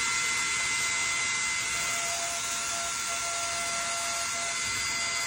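An electric appliance motor running steadily: an even, loud hiss with a high whine.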